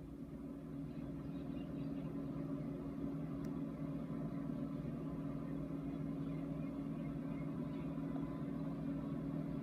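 NHL arena goal horn sounding one long, steady low blast of two tones together, swelling in over the first second or so.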